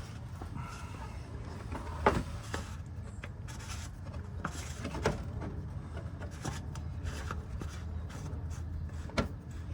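Oil filter housing, with its new cartridge filter, being fitted back in and threaded by hand: scattered rubbing and scraping with a few sharp clicks and knocks, the loudest about 2, 5 and 9 seconds in, over a steady low hum.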